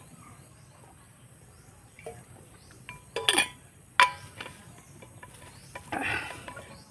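Steady high-pitched chirring of insects, with a person drinking from a water bottle and putting it down: a loud breathy sound falling in pitch about three seconds in, a sharp click about a second later as the cap is closed, then a short rustle of handling near the end.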